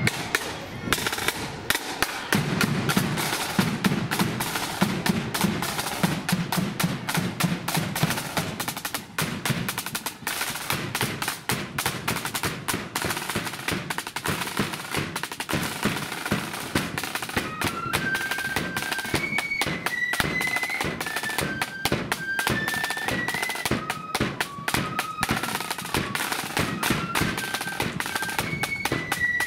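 Marching flute band's snare drums and bass drum beating a rapid march rhythm with rolls. About two-thirds of the way through, the flutes come in with a high melody over the drums.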